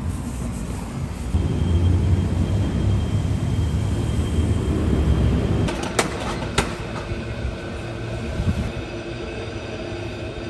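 Street traffic rumbling, loudest for a few seconds in the first half, with two sharp clanks about six seconds in.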